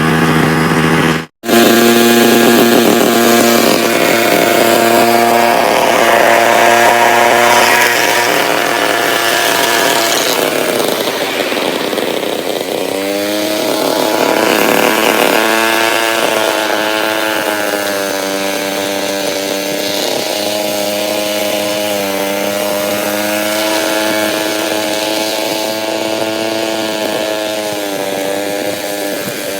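Handheld petrol grass trimmer's small engine running at high revs while cutting grass. Its pitch dips and then rises again about halfway through.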